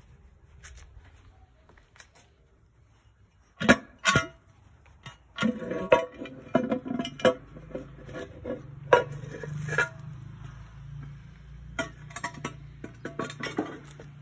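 Metal engine parts clanking and knocking, irregular and with brief ringing. Two sharp knocks come about four seconds in, then a busier run of clatter, and a low steady hum runs underneath in the second half.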